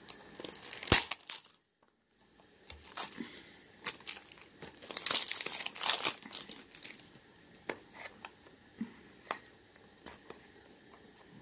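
Clear cellophane wrap crinkling and tearing as it is peeled off a small cardboard cosmetics box, with a loud crackle about a second in. After a brief gap the crinkling comes thick around the middle, then thins to scattered crackles.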